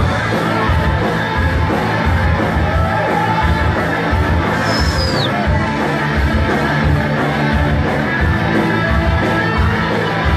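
A live rock band playing, with electric guitar, drums on a steady beat and a singer's voice, over crowd noise. A brief high falling whistle comes about halfway through.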